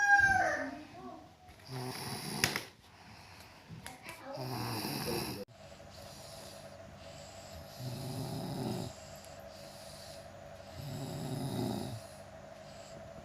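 A person snoring, one snore about every three seconds. About five seconds in, the sound changes abruptly to quieter snores over a steady hum.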